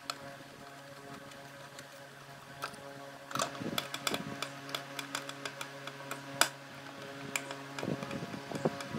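Small screwdriver turning out the screws that hold a Philco food processor's motor: a scatter of light clicks and scrapes, busiest about three to four seconds in, over a steady low hum.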